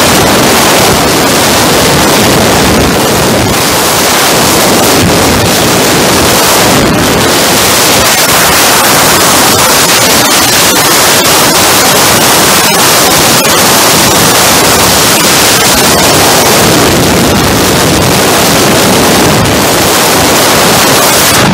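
Loud, steady wind rushing over the microphone of a camera riding on a motorcycle at speed, with motorcycle and road noise underneath.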